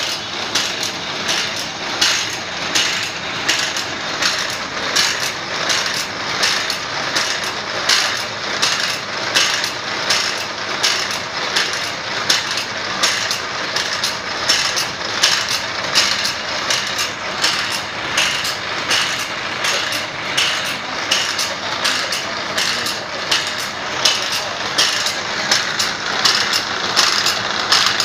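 Automatic band-saw blade sharpening machine at work: the grinding wheel grinds each tooth in turn while the blade is stepped along tooth by tooth. This makes a steady, evenly repeating run of short clacks and grinding rasps.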